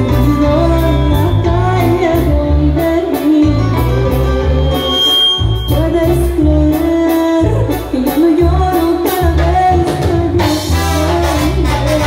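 Live Latin band playing: horns carry the melody over a rhythmic bass line and drums.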